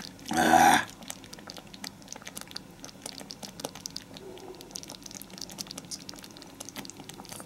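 Close-miked chewing: soft, irregular mouth clicks and smacks as food is eaten. About half a second in there is a short hum from the eater.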